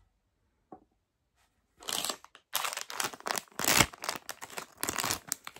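Schleich Eldrador Mini Creatures blind bag wrapper crinkling and tearing as it is handled and ripped open, a quick, uneven run of crackles starting about two seconds in.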